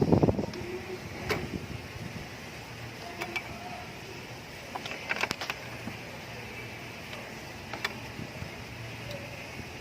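Scattered light clicks and knocks of parts being handled during car radiator-fan work, over a faint steady hum.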